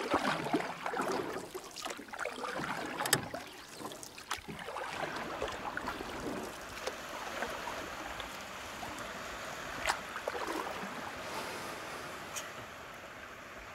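Surf washing on a beach with wind noise, and a few sharp clicks.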